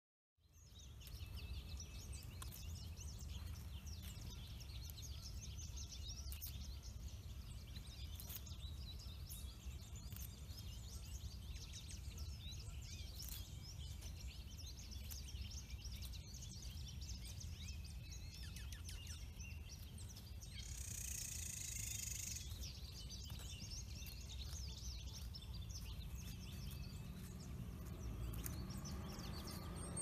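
Many small birds chirping and calling over a steady low rumble, fading in from silence at the start. A louder, nearer bird call stands out about two-thirds of the way through.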